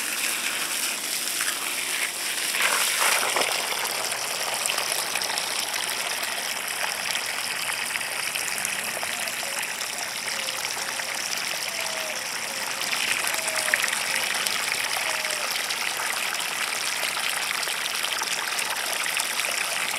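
Garden hose spraying a steady stream of water into a hole dug in loose soil, the water splashing and pooling in the hole as the soil soaks it up.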